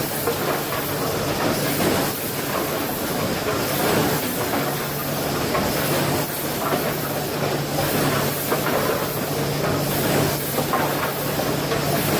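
Wood-processing machinery running: a continuous din of clatter and hiss, with a steady low hum that comes in about four and a half seconds in.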